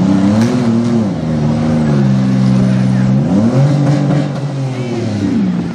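Demolition derby car engine revving hard. It climbs just after the start and holds, drops back about two seconds in, climbs again about a second and a half later, then falls off near the end.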